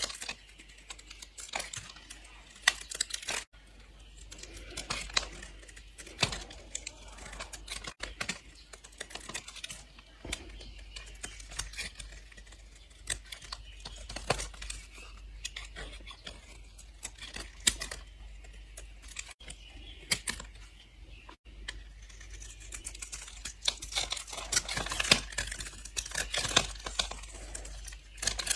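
A blade slicing through bars of dry soap, with crisp crunching and a rapid crackle of sharp clicks as the soap breaks and crumbles under the cut.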